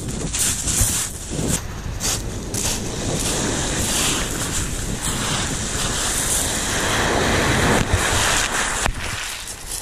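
Sea waves washing onto the shore, a steady rush of surf that swells louder late on and eases just before the end, with wind buffeting the microphone.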